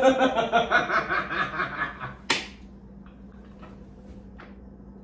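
Hearty laughter in quick rhythmic pulses for about two seconds, ending with one sharp smack, likely a hand slap or clap, then only faint ticks.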